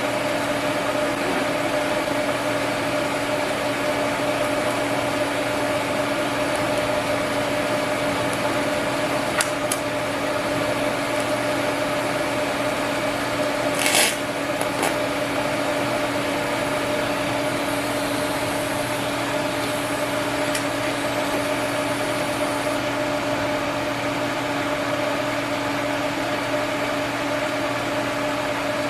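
TIG welder humming steadily with an even hiss during cast iron weld repair, with one short sharp click about fourteen seconds in.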